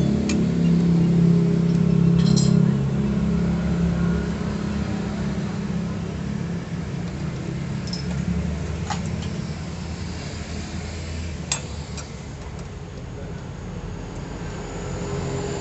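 A motor vehicle engine running, steady and low, fading after the first few seconds. A few sharp metallic clinks of a socket wrench on the CVT cover bolts come scattered through it.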